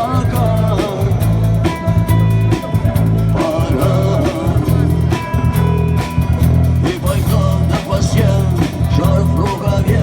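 Live rock band playing, with guitar over a heavy, pulsing bass beat.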